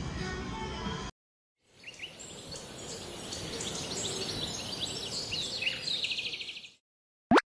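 Background music cuts off about a second in. Then come many short bird-like chirps over a steady high hiss, fading in and out. Near the end there is a single brief, loud rising sweep.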